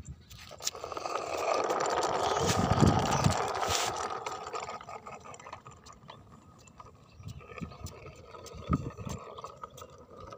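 Small toy truck's wheels rolling and rattling over a rough, grooved concrete road as it is pulled on a string. The sound is loudest over the first few seconds and then fades as the truck moves off.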